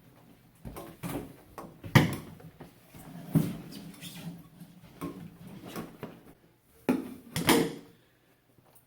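Irregular knocks and clunks of hovercraft parts being handled and set down, the sharpest about two seconds in and two more close together near the end; no blower is running.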